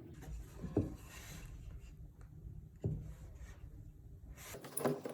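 Two dull knocks about two seconds apart, with faint rubbing between them and a quick cluster of knocks near the end.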